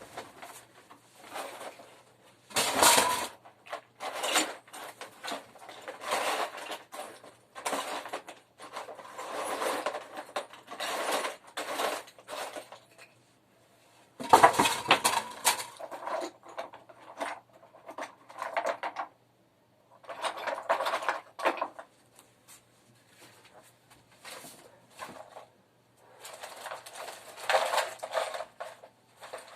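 Small metal items (nails and drill bits) clinking and rattling as they are rummaged through by hand, in irregular clattering bursts with short pauses, the loudest about three seconds in and again about fourteen seconds in.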